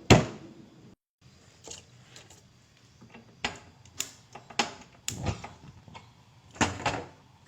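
Washed red ginger root being smashed to release its juice: a series of irregular knocks, about eight blows, the loudest one just at the start and a strong pair near the end.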